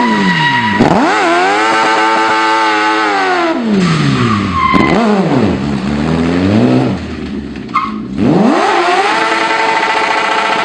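Modified Smart Fortwo's engine revving hard as it spins its rear tyres in smoky donuts. The revs fall and climb back sharply several times, then hold high near the end.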